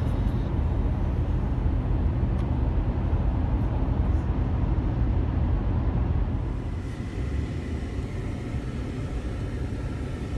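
Car interior road noise while cruising on a highway: a steady low rumble of tyres and engine. About two-thirds of the way through it gives way to quieter outdoor traffic noise by a roadside.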